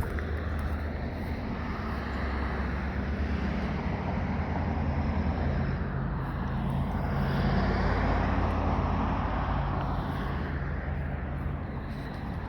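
Road traffic noise: a steady engine rumble with tyre noise that swells to its loudest about two-thirds of the way through as a vehicle passes, then eases off.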